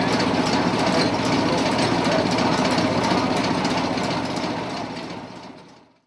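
1914 Maytag washing machine running on its small gasoline engine: a steady, rapid mechanical clatter of engine beats and gearing. It fades out near the end.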